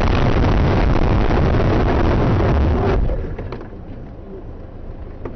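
Loud, continuous rushing noise inside a car just after a head-on collision. It cuts off about three seconds in, leaving a quieter background with a few small clicks and knocks.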